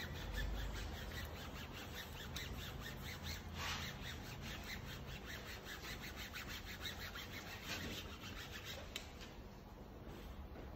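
Faint rubbing and brushing as hands smooth a vinyl decal onto a painted metal car door, with a few short swishes of palm over the film.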